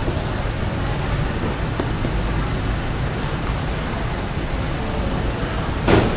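Steady rumble of street traffic in the background, with one sharp knock near the end.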